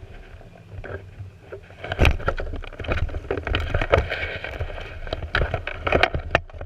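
Irregular knocks, clunks and rustling from inside the cockpit of a stopped Formula Renault 2.0 car as the driver pulls off the steering wheel and moves about, starting about two seconds in.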